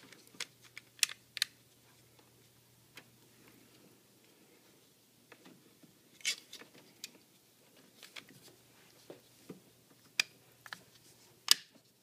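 Scattered clicks and taps of a 3D-printed plastic Raspberry Pi case being handled, its top pressed into place, with a lull of about three seconds after the first few clicks.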